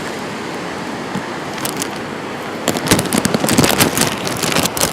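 Hurricane-force wind rushing steadily, then about halfway through a spell of rapid crackling and clattering over the wind noise.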